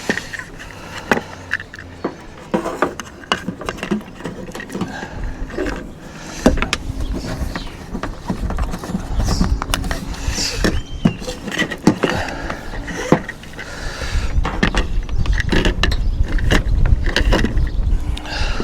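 Scattered clicks, taps and rustles of solar cables being handled and fed down through a roof cable gland, with a low rumble that swells about six seconds in and again near the end.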